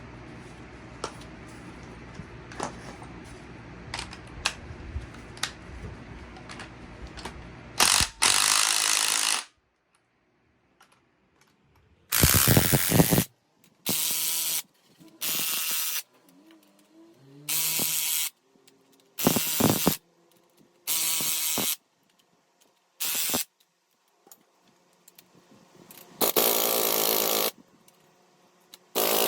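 A power tool run in about ten short bursts, each a second or less, tightening the screws of a coil-spring compressor on a car strut. Before the first burst there is a steady low noise with scattered clicks.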